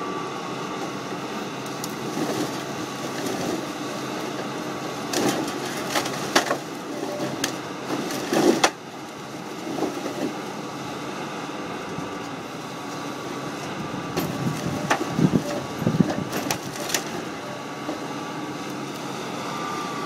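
Tracked hydraulic excavator (JCB JS200 LC) running steadily as its log grapple loads eucalyptus logs onto a truck trailer. Clusters of sharp wooden knocks and clatters as the logs are set down come about a quarter of the way in, and again about three quarters through.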